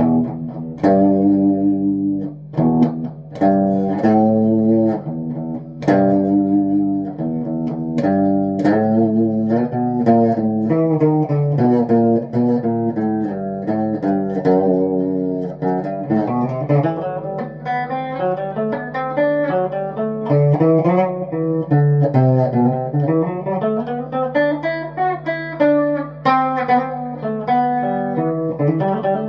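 Les Paul-style electric guitar being played: short rhythmic chord stabs for about the first ten seconds, then a melodic lead line with notes bending and sliding up and down in pitch.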